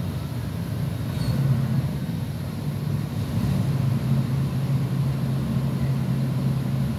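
Heavy diesel engine running at a steady idle, a low even drone.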